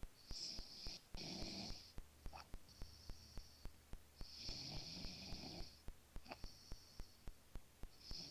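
A man snoring in his sleep: a loud rasping snore about every three and a half seconds, with softer breathy hiss between them. Under it runs a fast, even ticking, about four ticks a second.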